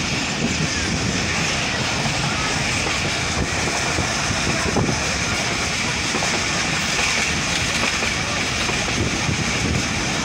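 Pak Business Express passenger train running at speed, heard from an open carriage window: a steady rush of air and wheels on the rails.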